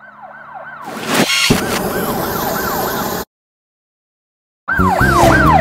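Police car siren wailing in quick repeated falling sweeps, with a loud noisy rush coming in about a second in. It cuts off suddenly into silence a little after three seconds. Near the end a louder siren starts, its pitch rising and falling several times a second over steady low tones.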